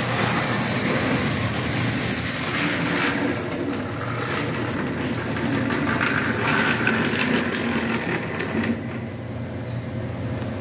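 Model train, a steam tram locomotive pulling freight and tank wagons, running along the track: a steady high-pitched motor whine with quick clicking of the wheels on the rails, which stops near the end as the train halts.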